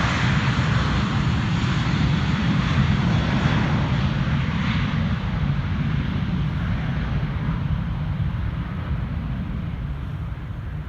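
Jet airliner's engines passing, a loud steady rush that slowly fades over the second half.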